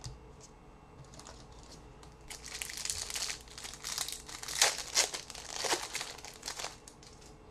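A trading-card pack wrapper crinkling and crackling as the pack is torn open and handled. The crackling runs in a dense stretch from about two seconds in until shortly before the end.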